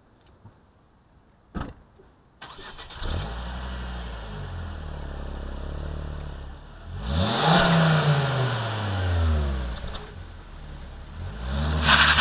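Ford S-MAX 2.5T's turbocharged five-cylinder petrol engine on its stock exhaust. It is started a couple of seconds in and settles to a steady idle. It is revved up and allowed to fall back about halfway through, then revved briefly again near the end.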